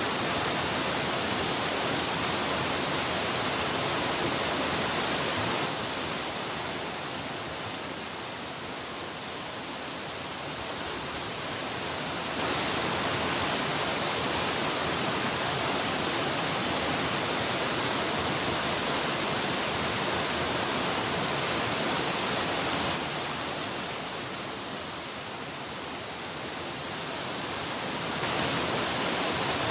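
Rushing water of river rapids, a steady hiss. It becomes somewhat quieter twice, for several seconds each time, from about six seconds in and again from about twenty-three seconds in, and each time comes back up suddenly.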